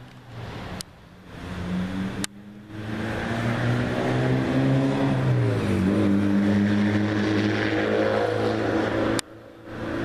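A road vehicle's engine running nearby, its pitch sliding down about halfway through as it goes by, then holding steady. A few sharp clicks cut the sound out briefly, near the start and again near the end.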